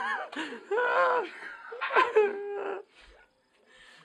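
Bursts of laughter and shrill, squealing voices, with a short held note just before the sound drops away near the end.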